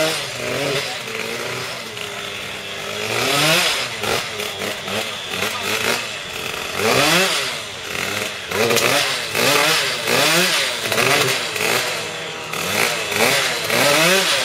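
Vespa Ciao moped's small two-stroke engine being revved on the spot, the throttle blipped over and over so the pitch climbs and drops back many times in quick succession.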